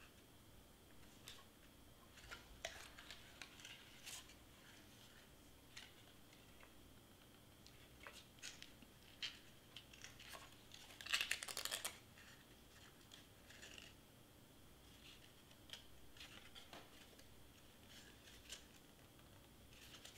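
Faint rustles and light taps of cardstock being handled, folded and pressed down, with one short, rapid rasping burst about eleven seconds in.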